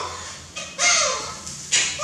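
Baby macaque giving a short whimpering call that slides down in pitch about a second in, followed near the end by a brief sharp noise.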